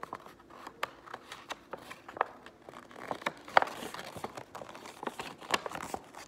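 A sheet of paper being handled, folded and creased by hand: scattered crisp rustles and sharp crackles, with a louder rustle about three and a half seconds in.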